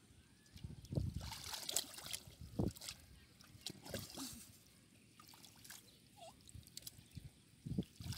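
Wet mud and shallow muddy water squelching and sloshing as hands and bodies move through it, groping for fish: irregular wet slaps and sloshes, loudest in a cluster a second or two in and again near the end.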